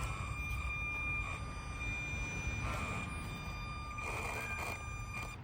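Electric drive of a 1/24-scale RC rock crawler whining steadily as it climbs, with short bursts of scraping as the oversized tires rub on the body; the rubbing is dragging the motor down.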